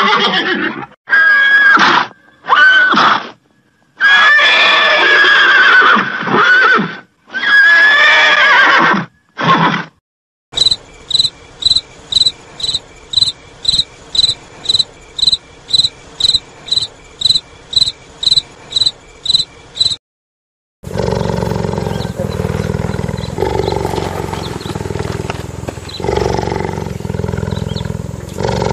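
Horses neighing and whinnying in several long calls, then crickets chirping about twice a second from about ten seconds in. After a short gap near twenty seconds, a low, steady rumbling sound.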